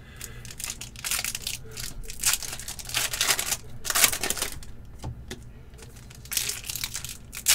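Foil hockey card pack wrappers crinkling and tearing as they are ripped open by hand, in a string of short crackly bursts.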